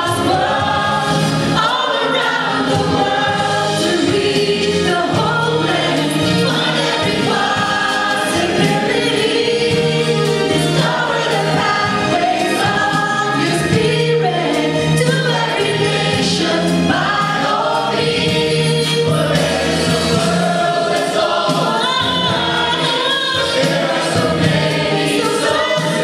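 Church choir of men and women singing a Christian song.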